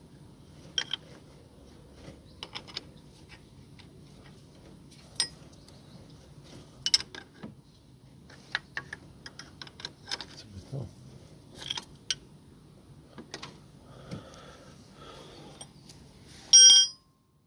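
Scattered metallic clicks and clinks of hand tools and AC compressor clutch parts being handled, with one loud ringing metal clink near the end.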